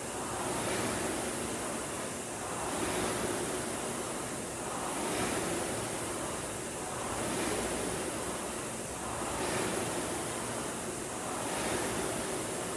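Concept2 indoor rower's air-resistance flywheel whooshing, swelling on each drive and fading on the recovery, about one stroke every two seconds (around 26 strokes a minute).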